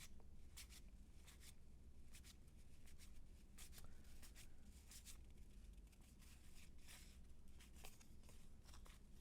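Faint handling of 1990 Fleer cardboard baseball cards: irregular soft clicks and brief sliding rustles as cards are flipped through one by one.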